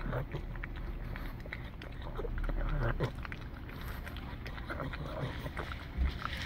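Pug licking a soft-serve ice cream cone: a run of quick, wet lapping and smacking clicks, over a low steady rumble.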